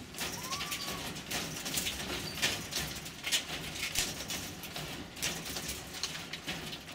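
An animal moving around in a wire-mesh cage: a steady run of irregular clicks and rattles from the mesh. A short faint chirp comes about half a second in.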